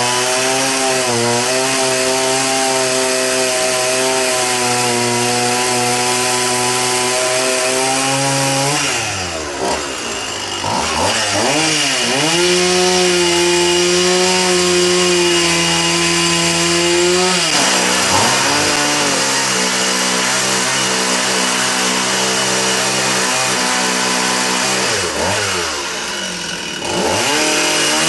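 Chainsaw cutting into dry wood at high revs. The throttle is eased off three times, with the engine note falling and then revving back up.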